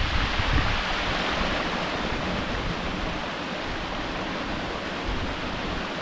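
Waterfall rushing, a steady, dense roar of water pouring over rock close by. Low wind buffeting on the microphone in the first second.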